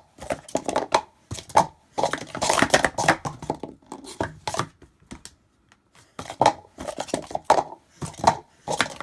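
Red checker Speed Stacks plastic sport-stacking cups clacking rapidly as they are stacked up into pyramids and slid back down on the stacking mat, a quick rattle of sharp plastic clicks with a brief pause about five seconds in.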